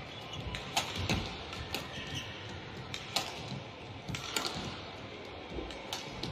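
Badminton rally: sharp cracks of rackets striking the shuttlecock, about six of them roughly a second apart, with players' footfalls on the court in between.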